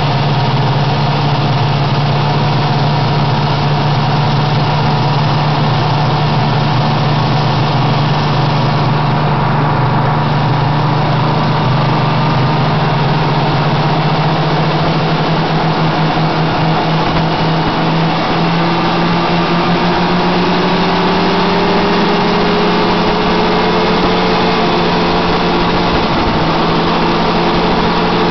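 Snowmobile engine running steadily while travelling, its note climbing gradually from about two-thirds of the way through as the engine speeds up.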